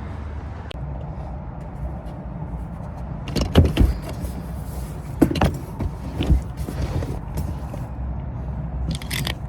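Car with a steady low rumble, broken by several loud knocks and thumps in the middle and a short sharper sound near the end.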